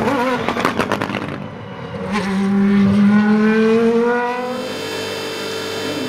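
Single-seater race car engine revving in quick blips with a burst of sharp cracks, then rising steadily in pitch as it accelerates, and holding a steady high note from about two-thirds of the way in.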